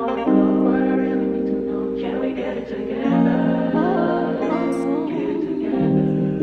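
Background music: a song with held, layered vocal chords that shift about three seconds in and again near the end.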